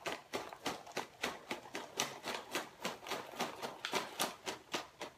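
Popped microwave popcorn poured from its paper bag onto a serving plate: a quick, irregular patter of light clicks and rustles.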